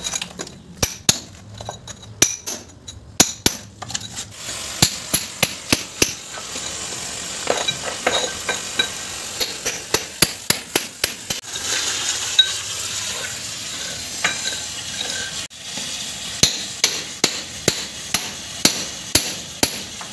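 Water spraying in a hissing jet from a leak in a buried galvanized iron pipe. Runs of sharp knocks, about two a second, sound over the spray and are the loudest sounds.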